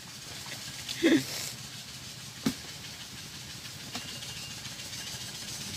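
Steady hiss of background noise, with a short vocal exclamation about a second in, a sharp click about halfway through, and a fainter click later.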